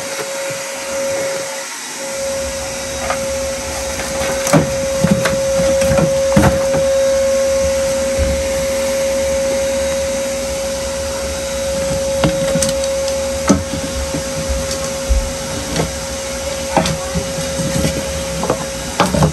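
Wet/dry shop vacuum running with a steady whine, its hose sucking water out of a flooded sump pit. A lower rumble joins about two seconds in, with a few short knocks scattered through.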